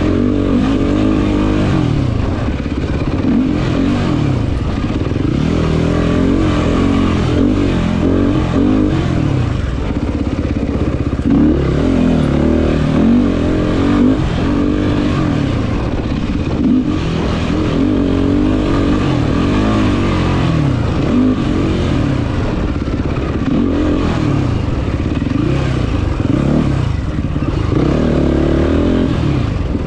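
Quad's engine revving hard and easing off over and over under racing throttle, its pitch rising and falling every second or two.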